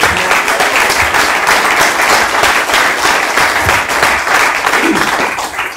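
Audience applauding with many hands clapping; it starts suddenly and dies down near the end.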